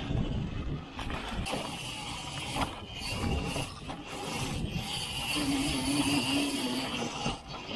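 Electric dirt bike being ridden off-road: a steady high motor whine over tyre, chain and wind noise, with several short knocks from the ride over rough ground.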